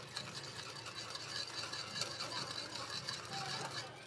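Metal spoon stirring thin, wet cake batter in a stainless steel bowl: a continuous scraping against the bowl's sides and bottom.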